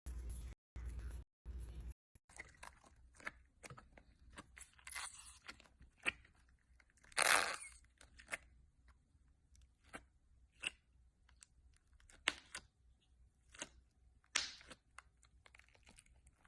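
Crunchy slime being pressed and pulled by hand, giving irregular crackles and crunches, the loudest about seven seconds in. For the first two seconds a chopped, pulsing sound with a low hum comes before it.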